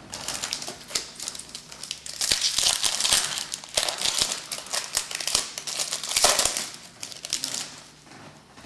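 A trading-card pack's wrapper crinkling and tearing as it is handled and opened, with many small crackles, louder about two seconds in and again around six seconds.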